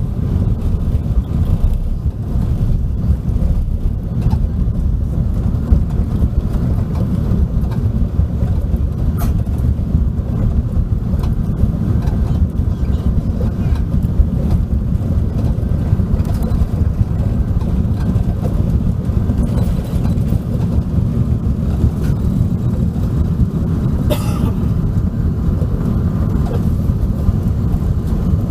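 Steady low rumble of airflow and engines heard inside an Airbus A380's passenger cabin in flight, with a few faint clicks.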